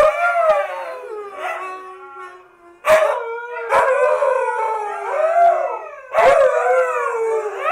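Two Siberian huskies howling together, their drawn-out voices overlapping and sliding up and down in pitch. The howling comes in three bouts, with fresh bouts starting abruptly about three seconds and six seconds in.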